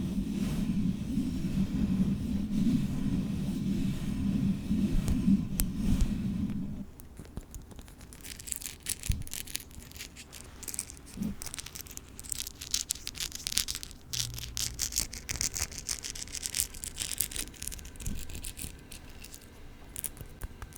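Long fingernails rubbing and scratching directly on a microphone. For about the first seven seconds it is a dense, loud, low rubbing rumble. Then it turns into quieter, crisp, crackly nail scratching with many rapid clicks.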